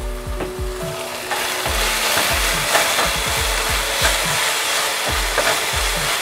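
Chicken strips stir-frying in a hot pan, sizzling, with a spatula stirring and scraping; the sizzle grows louder about a second in. Background music with a steady low beat plays under it.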